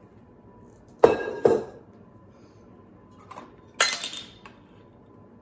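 Metal clanks from a stainless-steel mixing bowl and spatula: two quick knocks with a short ring about a second in, then a louder ringing clank a little before four seconds in as the bowl is set down.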